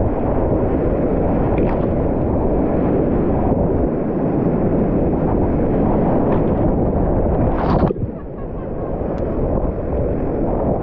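Whitewater rapid rushing and surging loudly around a kayak, with brief splashes. About eight seconds in, the noise drops sharply after a splash, then builds again.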